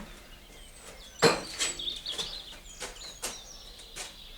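A series of knocks: one sharp, loud knock about a second in, then several lighter knocks, with birds chirping in the background.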